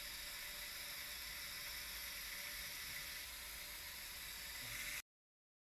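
Steady faint hiss of background noise with no distinct event, cutting to dead silence about five seconds in.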